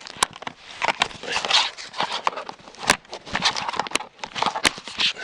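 Hard plastic gadgets, the power banks, being picked up and handled, giving a series of sharp clicks and knocks with rustling between them.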